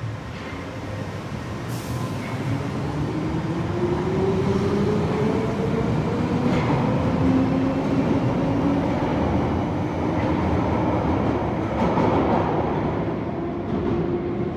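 London Underground 1973 Stock Piccadilly line train pulling out of the platform and accelerating into the tunnel, its traction motors giving a whine that rises in pitch as it picks up speed, over steady wheel and rail noise.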